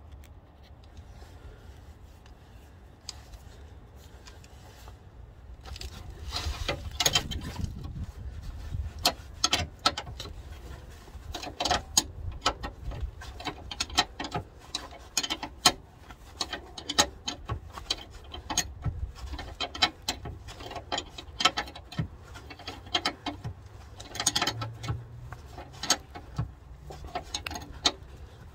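Ratchet spanner clicking in quick runs as it turns a bolt on a car's rear suspension arm. It starts about six seconds in, after a quieter stretch.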